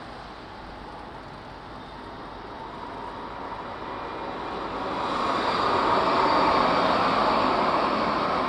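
A tram rolling onto a bridge, its running noise growing louder from about three seconds in and peaking near the end, over steady road traffic.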